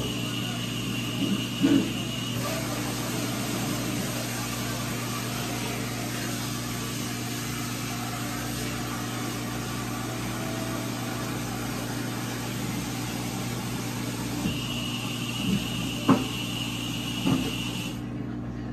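Microwave oven running: a steady electrical hum with a hiss over it. There are a few light knocks and clatters, and a thin high whine comes and goes. Near the end most of the hiss drops away.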